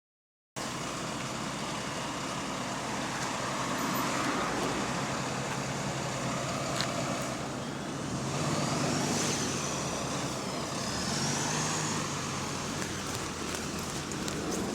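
Bus engine running in street traffic, with a high whine that rises and falls about nine to eleven seconds in.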